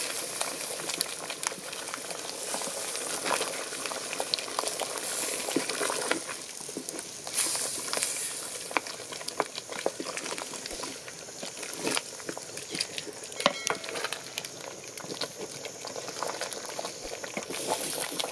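Thick chicken-and-peanut-butter sauce boiling in a metal pot, with many small irregular pops and plops of bursting bubbles, while a wooden spoon stirs through it.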